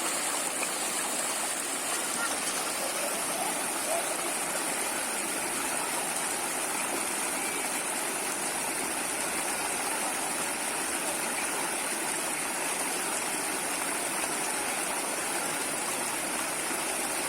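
Water flowing in a stream with a steady rushing sound.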